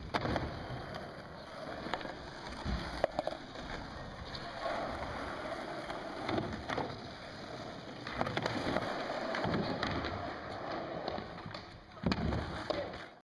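Skateboards rolling on asphalt and knocking on a plywood ramp, with several sharp clacks a few seconds apart from the boards landing or hitting the wood.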